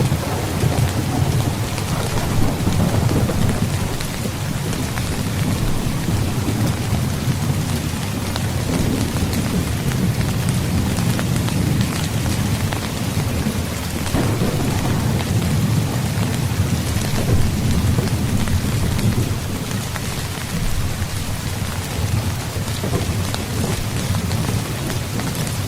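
Heavy rain falling steadily, with low thunder rumbling underneath that swells and eases.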